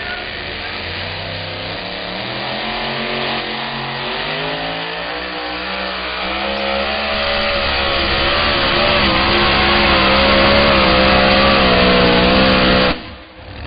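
Two-wheel-drive pulling truck's supercharged engine at full throttle, dragging the weight sled down the track. Its pitch climbs and wavers as the revs rise, and it grows louder before cutting off suddenly near the end.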